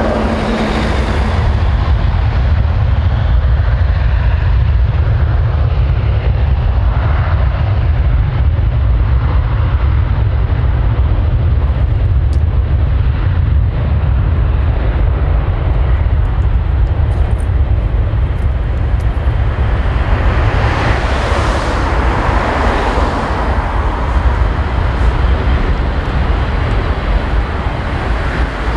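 Boeing 747-400 freighter's four jet engines at takeoff thrust: a loud, steady deep rumble with a rushing hiss over it, the hiss growing brighter in the last third as the jet lifts off and climbs away.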